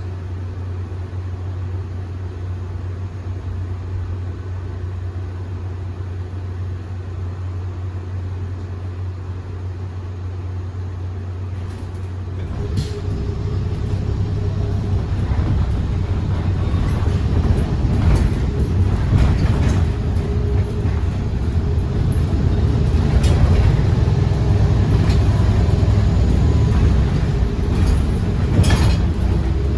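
Iveco Urbanway 18 Hybrid articulated bus running: a steady low hum for about twelve seconds, then a louder rumble as it gets going, with a steady mid-pitched whine and repeated knocks and rattles.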